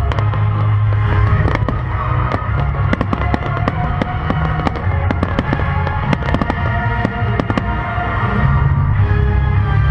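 Firework shells bursting in a dense run of sharp bangs and crackles during a grand finale, over music that plays throughout.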